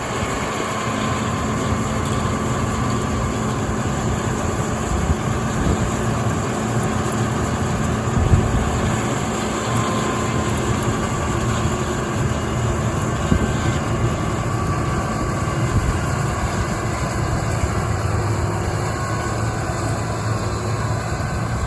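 Combine harvester running steadily while harvesting soybeans: a continuous engine and machinery drone.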